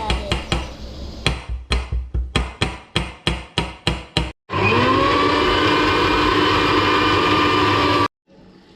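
A quick run of sharp knocks, about four a second, then an electric mixer grinder starts with a rising whine and runs steadily, grinding coconut, before stopping abruptly.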